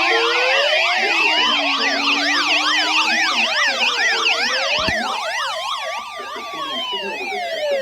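Several electronic sirens sounding at once: a slow wail rising and falling over several seconds, layered with many fast yelp sweeps.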